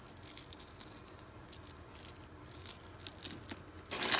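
Beads of a bracelet clicking softly as it is turned over in the fingers. About four seconds in comes a louder jangling rustle as a hand rummages through loose costume jewelry in a cardboard box.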